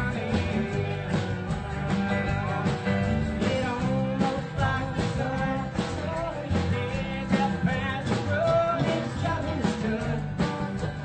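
Live rock band playing a song: electric guitar over a drum kit keeping a steady beat.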